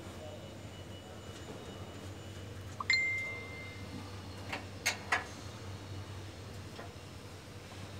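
A sharp metallic clink about three seconds in, ringing on clearly for about a second, followed by a few light knocks, over a steady low hum.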